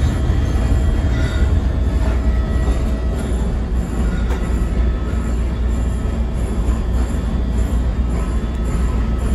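A CTA Blue Line rapid-transit car running along the track, heard from inside the car. There is a steady, loud rumble of wheels and running gear, with faint high whining tones over it.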